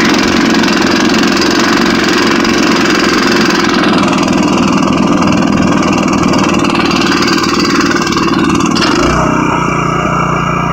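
Honda snowblower engine running steadily while it throws snow. About nine seconds in, the hiss drops and a steadier low hum takes over.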